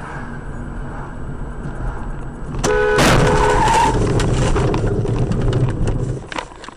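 Car driving with steady road noise; nearly three seconds in a car horn sounds briefly, followed by a few seconds of loud, rough noise with scattered clicks that dies away near the end.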